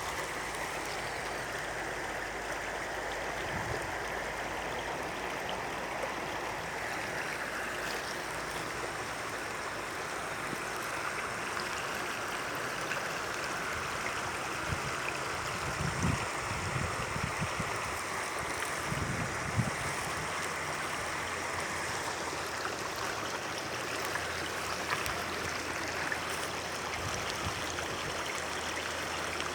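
Shallow stream babbling and trickling steadily over stones, with a few brief low thumps around the middle.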